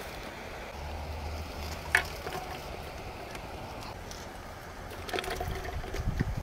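Quail eggs placed by hand into water in a cooking pot: a sharp click about two seconds in, then small splashes and knocks of eggs in the water, busier near the end.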